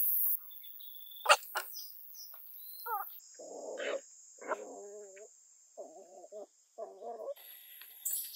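Puppies whining: four short wavering cries about half a second to a second apart in the middle, after a couple of sharp clicks.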